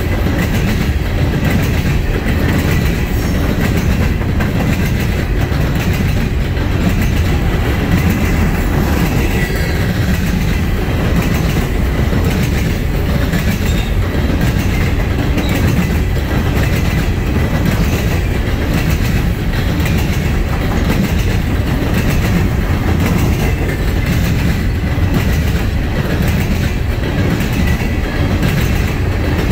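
Norfolk Southern coal train's open-top hopper cars rolling steadily past close by, loud and even, with the rhythmic clickety-clack of steel wheels over the rail joints.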